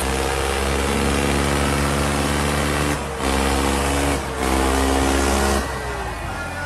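Tractor diesel engine running flat out at a steady pitch under heavy load while pulling against another tractor in a tug-of-war. The engine note cuts out briefly twice around the middle, then falls away near the end.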